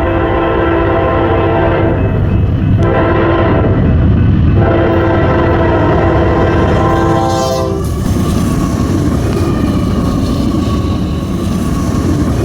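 Freight train's locomotive air horn sounding in three blasts, the last and longest cutting off about eight seconds in, over the heavy rumble of the train passing close by.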